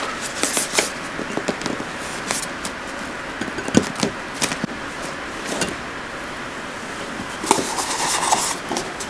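Handling noise from a yogurt tub being turned over onto a plate and squeezed and peeled away from a steamed cake: scattered light clicks, taps and scrapes of the tub against the plate and hands.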